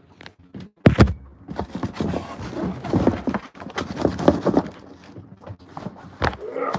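Cardboard box being handled: irregular knocks, scrapes and rustles as it is lifted and tipped to get the packed contents out, with a hard thump about a second in.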